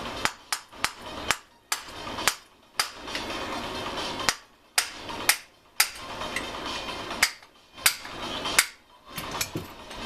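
Hammer tapping on the crankcase of a small two-stroke hedge trimmer engine to split its two halves apart: about fifteen sharp strikes in irregular groups of two to five.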